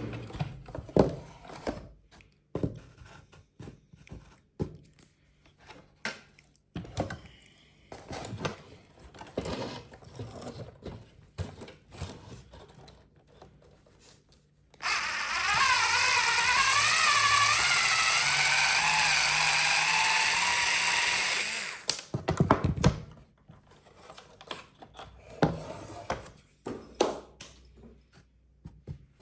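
Scattered knocks and plastic clatter, then a small electric motor on an RC vehicle whining steadily for about seven seconds, its pitch wavering, before the knocks resume.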